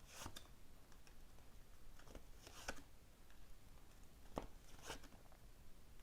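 Tarot cards being handled as a card is drawn: a few faint, short rustles and soft clicks, in a few small clusters.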